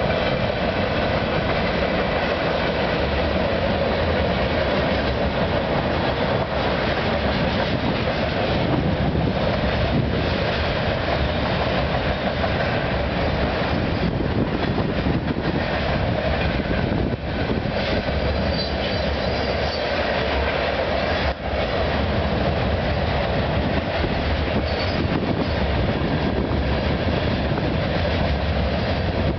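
Freight cars of a long CN freight train rolling past on an overpass at steady speed: continuous noise of steel wheels on rail, with no pauses.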